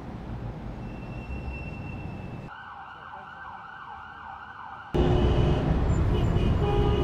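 City street ambience with a siren wailing in a fast up-and-down pitch, sounding thin and filtered. About five seconds in, louder street traffic noise cuts in.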